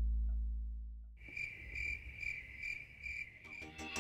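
A cricket chirping in a steady rhythm, about two chirps a second. It follows the fading end of a low guitar note, and music comes back in near the end.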